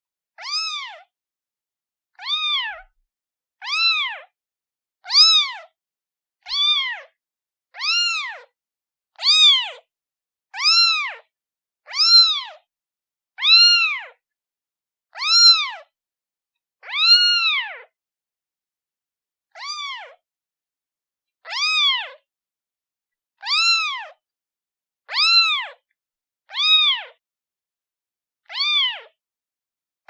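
A kitten meowing over and over: high, thin meows, each rising then falling in pitch, about one every second and a half.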